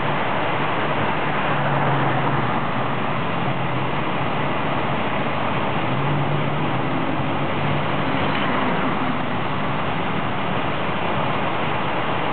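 Road traffic noise: a steady rush with a low engine hum that comes and goes, from a stopped semi truck and passing vehicles at an intersection.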